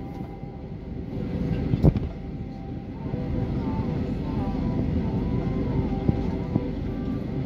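Jet airliner cabin noise while taxiing: a steady low rumble with a faint engine whine, and a sharp knock about two seconds in and a lighter one near six seconds.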